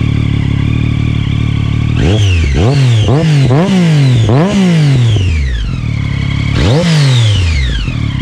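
Triumph Daytona sport bike's three-cylinder engine breathing through an aftermarket Yoshimura slip-on exhaust. It idles, then is revved in four quick throttle blips about two seconds in and once more near the end, each rev dropping back to idle.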